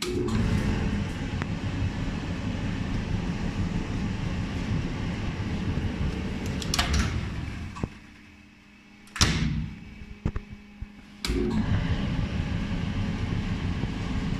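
Amana/Maytag clothes dryer running with a steady rumble. It goes quiet about halfway through, a sharp clunk and a few clicks follow, and the running rumble starts again near the end.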